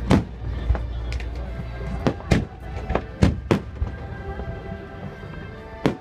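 Fireworks shells bursting: a string of sharp bangs, about eight, with several coming in quick succession in the middle, over music.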